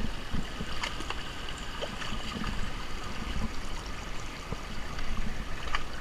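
Shallow brook trickling over stones, with the sloshing thuds of feet wading through it and a few light knocks.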